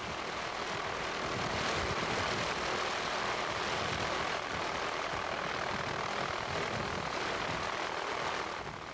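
Helicopter in flight: a steady rushing rotor and engine noise that holds an even level throughout.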